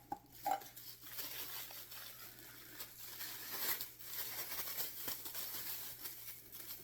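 Packaging rustling and crinkling as it is handled and unwrapped, with a couple of light knocks in the first second.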